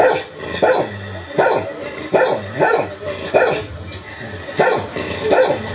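Dog barking repeatedly, about eight sharp barks in quick succession.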